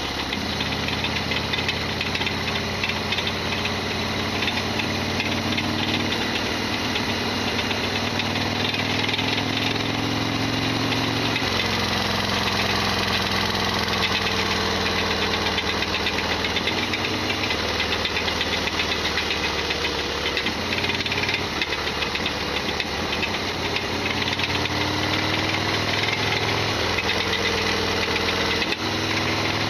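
Harley-Davidson XL1200R Sportster's air-cooled V-twin running under way, its note stepping up and down several times through the ride. It carries a loud mechanical rattle, the chronic clattering abnormal noise of this modified bike.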